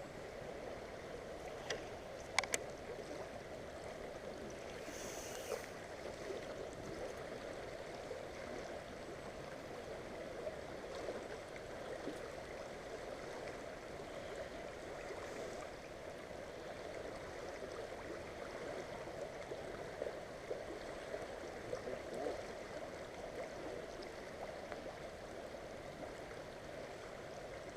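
River water flowing steadily, with a couple of sharp clicks about two seconds in.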